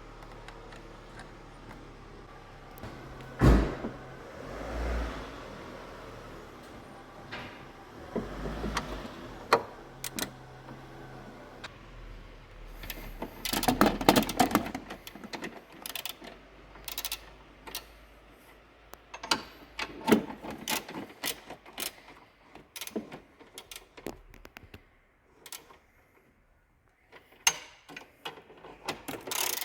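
Car engine running steadily with a low hum and a few knocks, the hum fading out about halfway; after that come many short, irregular clicks and knocks of metal parts being handled.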